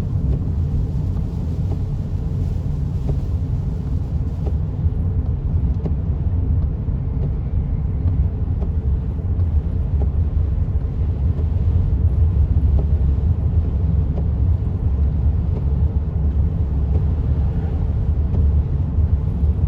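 Steady low road rumble inside a moving car's cabin, driving on a wet road in rain.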